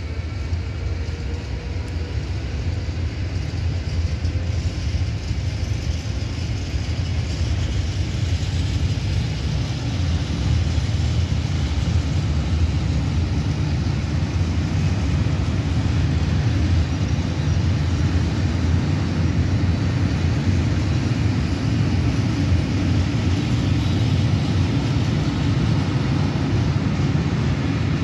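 Freight train of hopper wagons rolling past close by: a steady rumble of wheels on rail that builds over the first ten seconds or so, then holds.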